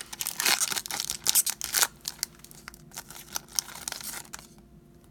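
Plastic wrapper of a trading card pack crinkling as it is pulled open and handled. The crinkling is dense for about two seconds, then thins to scattered crackles that die away near the end.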